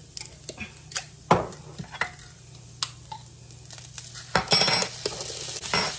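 Clicks and clinks of a jar of minced garlic being opened and a spoon being dipped in, with one sharp click a little over a second in. About four and a half seconds in comes a louder burst of spoon clatter and sizzling as the minced garlic goes into the hot pan of frying chicken chunks.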